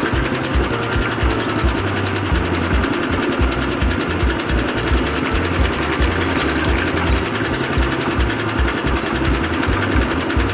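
Small electric motor of a miniature toy concrete mixer running steadily, turning its drum.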